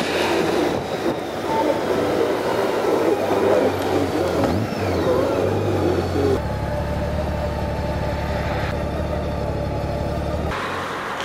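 Ride noise from a Honda Gold Wing 1800 motorcycle on the move: a steady mix of engine and rushing wind. The sound changes abruptly in character about six seconds in and again near the end.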